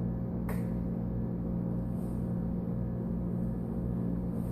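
A steady low hum with a few fixed tones, and a faint click about half a second in.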